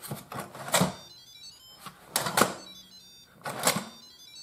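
Instant Pot electric pressure cooker lid being twisted into its locked position, with plastic clicks and scrapes, and the cooker's short electronic jingle of high tones that confirms the lid is on.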